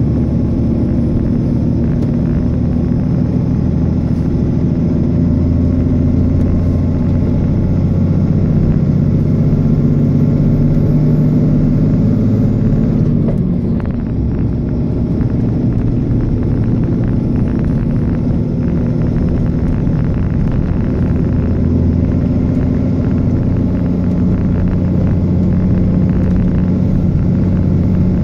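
Road vehicle's engine and tyre rumble while driving: a steady low drone whose engine note changes about halfway through, with a brief dip in level.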